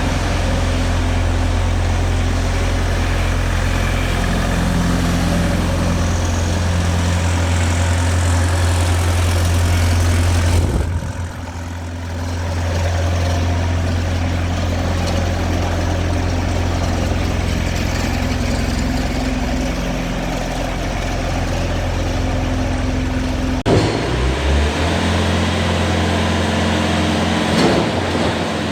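Bobcat T590 skid steer's diesel engine running steadily. Its note shifts about a third of the way in and again, with a sharp knock, a little over three quarters of the way through.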